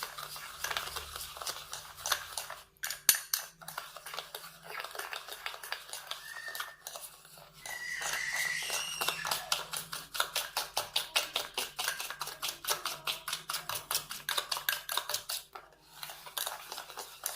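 Metal spoon beating instant coffee, sugar and a little water by hand, clicking rapidly and steadily against the side of the cup at about six strokes a second, with a couple of brief squeaks near the middle. The mixture is being whipped toward a thick, creamy, light-coloured paste.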